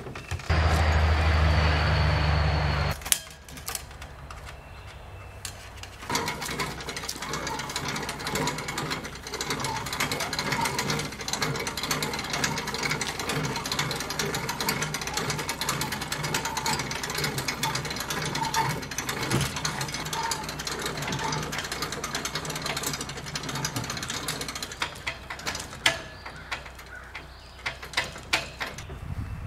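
Hand winch ratcheting steadily, a dense run of clicks, as it hauls the catamaran's mast upright. A louder low hum with a faint high whine comes for a couple of seconds near the start.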